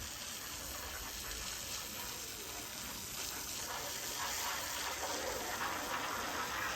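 Water spraying from a hose onto a roof edge and gutter, a steady hiss and splash that grows a little louder about halfway through, as grime is rinsed off.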